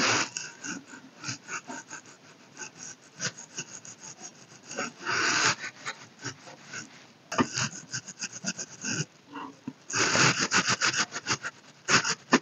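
Makeup brush rubbing over the skin of the cheek and jaw, picked up close by a clip-on microphone: a run of quick scratchy strokes with longer sweeping rubs about halfway through and again near the end.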